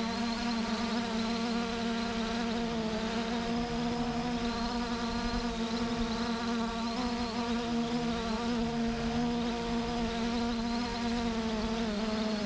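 Steady whirring hum of a small multirotor drone's motors and propellers, several pitches beating against each other and dipping and rising slightly as the rotors change speed.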